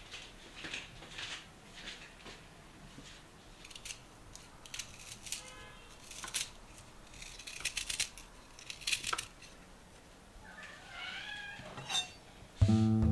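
Small serrated knife scraping the skin off Chinese water chestnuts in a series of short, irregular scrapes. Music comes in loudly near the end.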